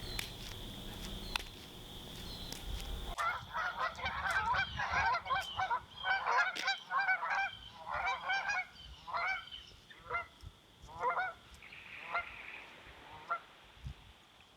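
Geese honking: a burst of many overlapping honks that thins out to single, spaced honks near the end, over a steady high insect drone.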